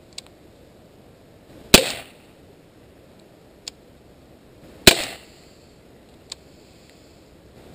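Beretta PX4 Storm CO2 pellet pistol firing lead pellets: two sharp pops about three seconds apart, each with a short tail. A faint click comes about a second before each shot.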